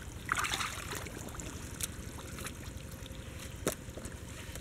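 Shallow muddy water splashing and trickling as hands and a scoop net work through it, over a steady low hum. Two sharp clicks, about two and four seconds in.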